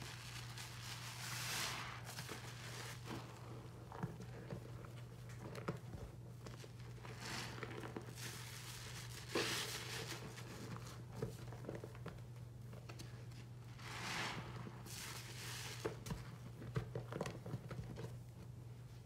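A soapy foam sponge squeezed and wrung in a sink of suds: wet squishing with the lather crackling, in repeated squeezes a few seconds apart.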